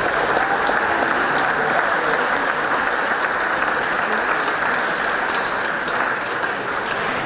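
Audience laughing and applauding, dying down near the end.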